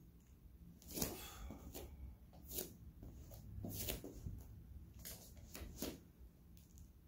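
Short, forceful breaths of a person exercising (bodyweight cossack squats), about half a dozen, roughly a second apart.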